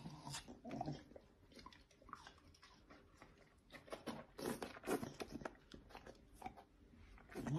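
A bull terrier biting and chewing a piece of watermelon: soft, wet crunching bites in small clusters, busiest about four to five and a half seconds in.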